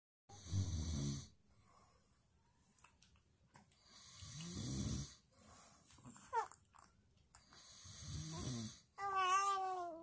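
A person snoring: three slow snores, each about a second long and some three to four seconds apart. Near the end a baby coos with a wavering voice.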